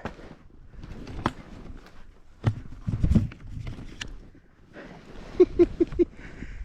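Snow crunching and skis and boots knocking as a skier struggles free in deep snow after a fall. Near the end come four quick, hard breaths with a bit of voice in them.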